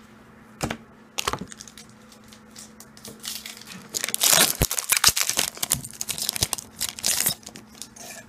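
Foil booster-pack wrapper being torn open and crinkled: a few light taps, then from about three seconds in a dense crackling tear that runs for about four seconds, loudest a second after it starts.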